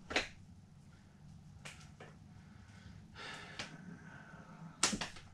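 A man breathing through his nose: a few short, sharp nasal breaths, the loudest near the end.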